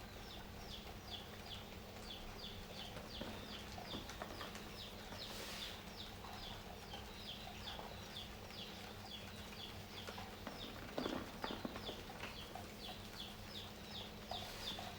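Soft sand-and-cement chunks crumbling, with a few crisp crunches about eleven seconds in. Behind it runs a steady high chirping, about three short falling chirps a second, and a faint low hum.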